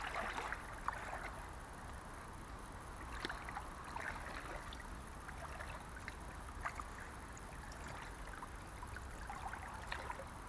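Shallow stream water sloshing and splashing around a wader's legs and hands as the streambed is stirred with a hand net, with scattered small splashes and ticks.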